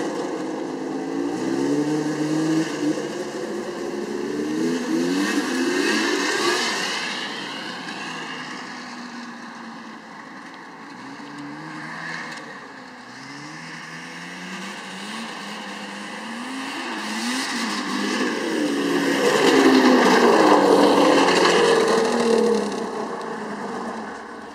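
Arctic Cat Wildcat 700 snowmobile's two-stroke engine revving up and down as it is ridden away. It grows fainter toward the middle, then comes back and passes close, loudest a few seconds before the end.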